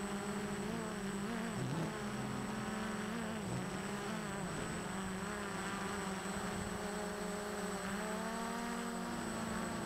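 Flying 3D X8 quadcopter's motors and propellers buzzing in flight, the pitch wavering a little a few times as the throttle changes.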